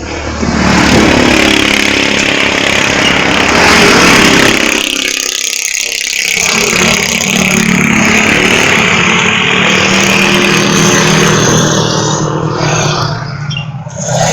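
A vehicle's engine running on the move, with heavy wind and road noise; the engine note drops away briefly about five seconds in, then comes back.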